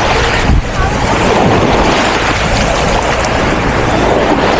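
Sea surf washing in, mixed with wind buffeting the microphone in a loud, steady rush.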